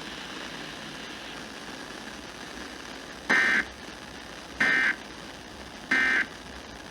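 Emergency Alert System end-of-message signal: three short bursts of warbling digital data tone, about 1.3 s apart, over a steady radio hiss. The bursts mark the end of the severe thunderstorm warning broadcast.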